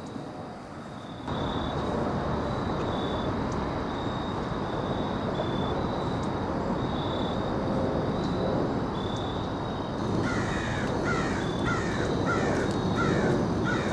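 A crow cawing, a run of about six caws in quick succession near the end, over steady woodland background hiss with a faint high chirp repeating about once a second.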